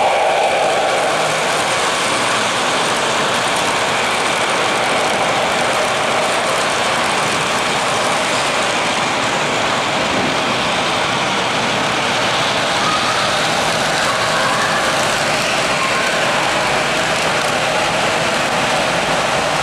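O-scale model trains running on three-rail track: a steady rolling rumble and hiss of wheels and motors.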